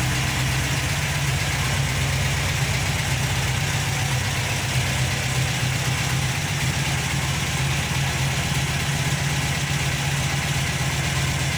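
Volkswagen Beetle's air-cooled flat-four engine idling steadily, with an even low rumble that does not change.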